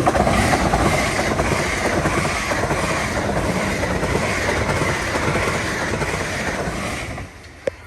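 Train passing at speed over a level crossing: a loud, steady rail noise that starts suddenly and cuts off abruptly about seven seconds in as the train clears, followed by a single click.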